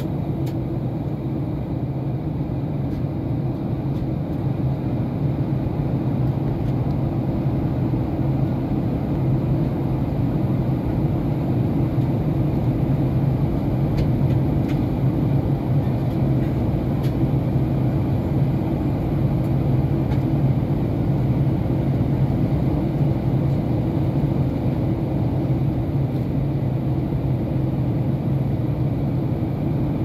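Steady low drone of an airliner in flight, heard inside the passenger cabin: engine and airflow noise.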